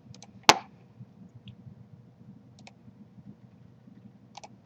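A few computer mouse clicks: a sharp, loud one about half a second in, and fainter single clicks near the start, around two and a half seconds and near the end, over a faint low hum.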